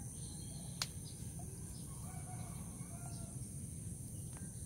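Rural outdoor ambience: a steady high insect drone over a low rumble, with a few faint clucks from distant chickens in the middle and a single sharp click about a second in.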